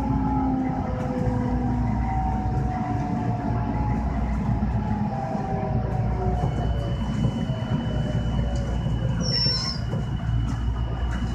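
JR West 223 series 1000 electric train pulling out of a station, heard from inside the driver's cab: a dense rumble of wheels and running gear, with the motor drive's whine in several tones that slide slowly downward, and light clicks from the track. A thin steady high tone joins about six seconds in.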